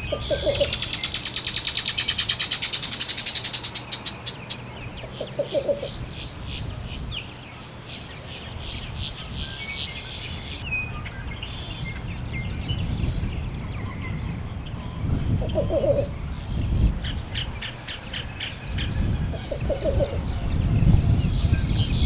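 Male least bittern singing its low cooing song: a short run of quick soft coos, given four times several seconds apart. A rapid, higher trilling runs over the first few seconds.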